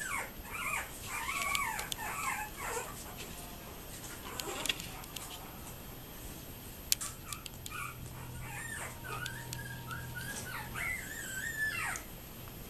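Young Yorkiepoo puppies whimpering with high, wavering squeaks in two spells: over the first few seconds and again from about eight seconds in, with a few soft clicks in between.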